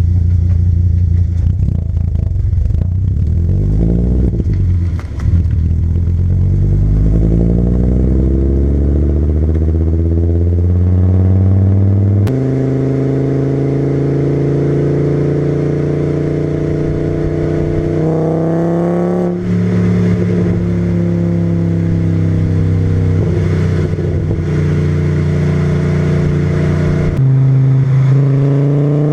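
VW VR5 20-valve 2.3-litre five-cylinder engine, breathing through a K&N panel filter and a straight-through 2.25-inch exhaust with a Milltek resonator, pulling hard with its pitch rising over the first ten seconds or so. Its note changes abruptly about twelve seconds in, then holds fairly steady under cruising, with short rises around eighteen seconds and again near the end.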